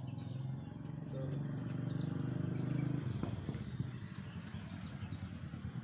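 A vehicle engine running with a steady low hum that swells to its loudest about two to three seconds in, then eases off, while small birds chirp in short high calls.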